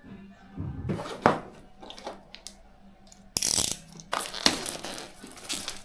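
Handling noises from PC parts and packaging: a few knocks and a sharp click, then a stretch of rustling and scraping, like packaging being torn or pulled open.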